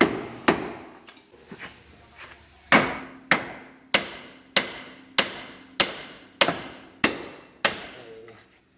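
A hammer striking metal on an old car's front suspension, most likely to break loose a seized 40-year-old ball joint. The blows are sharp and ringing, about one every 0.6 s, with a short break about a second in, then nine more strikes in a steady rhythm.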